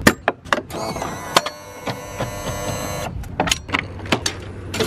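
A pickup truck's electric power window motor whining steadily for about two and a half seconds, with sharp clicks and knocks before and after it.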